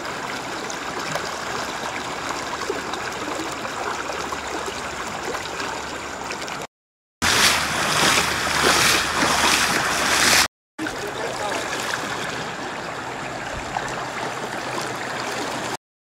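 Floodwater rushing: a steady, even rushing noise, broken twice by short silent cuts. The middle stretch is louder and swells in pulses, and the sound stops shortly before the end.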